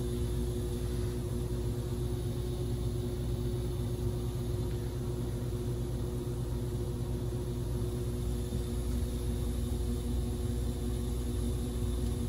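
Old Borg Warner gas-fired furnace running with its burners lit: a steady hum of several even tones over a low rumble and hiss.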